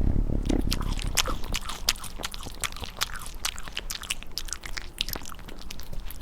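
Cat lapping water close to the microphone: a quick, uneven run of small clicks, several a second.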